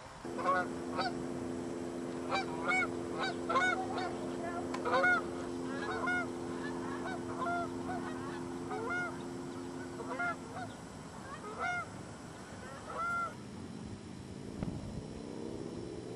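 A flock of Canada geese honking, many short calls overlapping, thinning out and stopping a few seconds before the end. A steady low hum runs underneath and stops about ten seconds in.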